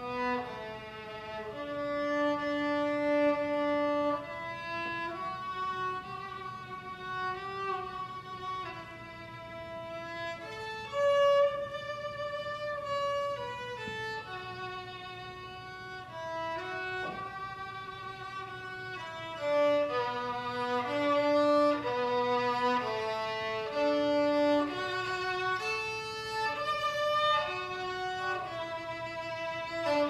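Solo violin playing a slow melody of long, held bowed notes, some with vibrato.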